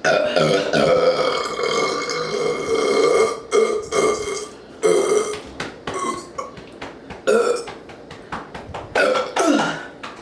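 A woman burping loudly: one long drawn-out burp of about three seconds, then a string of shorter burps, the last one falling in pitch near the end. It is gas brought up from a fizzy soft drink she has just chugged.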